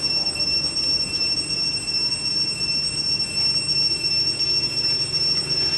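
Steady, high-pitched insect chorus: one unbroken shrill tone with a stronger, higher one above it.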